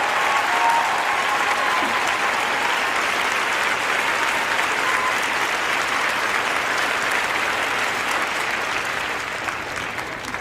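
A crowd, children among them, clapping and cheering in dense, continuous applause. A few voices shout out near the start, and the applause fades away near the end.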